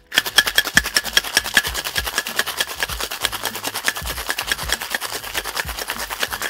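Ice rattling hard inside a two-piece metal tin-on-tin cocktail shaker being shaken, a fast even rattle of about eight knocks a second that starts just after the opening.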